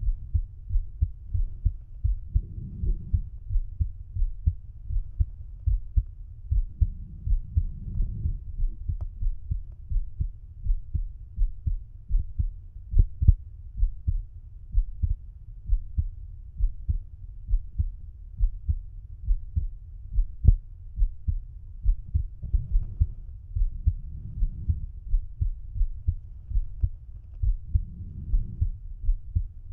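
A man's resting heartbeat heard through a stethoscope bell at the heart's apex (mitral area), a steady run of low, evenly repeating beats. A few faint sharp clicks break in now and then.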